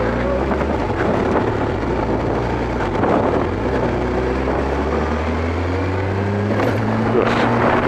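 Kawasaki ZX-12R's inline-four engine running at low, fairly steady revs while riding, over a haze of road and wind noise; the engine pitch shifts a little about three seconds in and again near the end.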